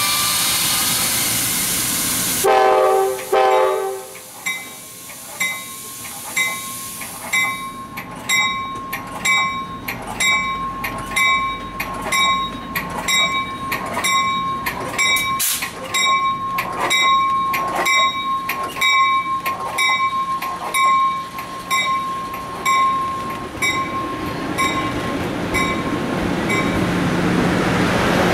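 Amtrak passenger train departing, led by a cab-control car. A loud hiss of air comes first, then a short horn blast about two and a half seconds in. From about seven seconds a bell rings just under twice a second as the train rolls away, fading near the end.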